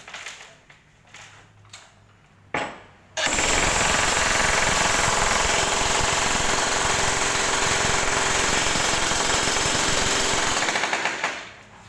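Jackhammer breaking up a floor: a short burst about two and a half seconds in, then a steady run of rapid hammer blows for about eight seconds before it stops.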